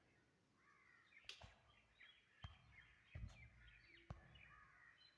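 Near silence, with faint bird chirps in the background and a few faint knocks.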